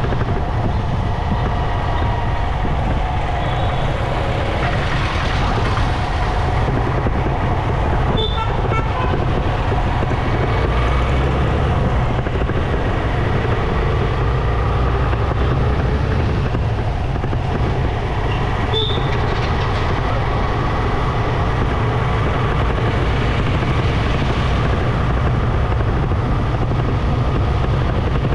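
Motorcycle riding in city traffic, its engine and road noise steady, with two short high beeps, one about eight seconds in and another about nineteen seconds in.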